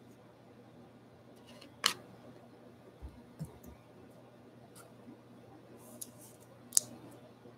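Sharp clicks and taps of trading cards being handled on a table, with two loud snaps about two seconds in and near the end and a few softer taps between.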